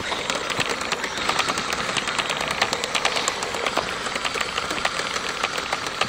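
Kyosho Blizzard RC snowcat driving through snow: its electric drive runs steadily under a rapid, irregular clicking clatter from the plastic tracks.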